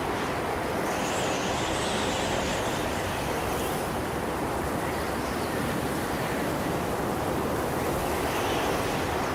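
Rushing wind, a gust-of-wind sound effect: a steady, even roar of noise with faint swells in the high hiss.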